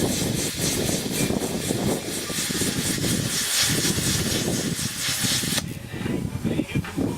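Plasma cutter hissing and crackling as it cuts slots into car-body sheet metal, cutting off about five and a half seconds in; a lower, uneven rumble carries on after it stops.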